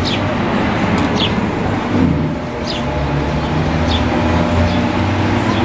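Steady low rumble of street traffic, with short high falling chirps about once a second.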